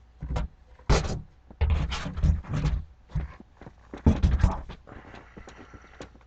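Fireworks boxes and packaging being handled close to the microphone: irregular bursts of rustling and scraping, loudest around the middle and dying away near the end.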